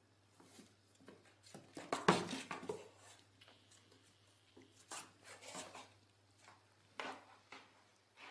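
A cat's claws and paws scraping and rubbing on a cardboard gift box: faint, irregular scrabbling, loudest about two seconds in, with shorter bursts near five and seven seconds.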